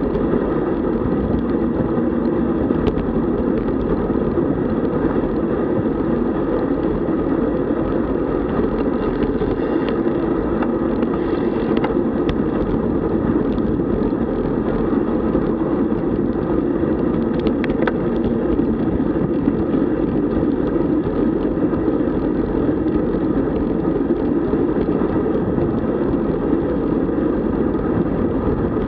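Steady rushing wind and road noise from riding a road bicycle at speed, an even, unbroken noise with no change in level.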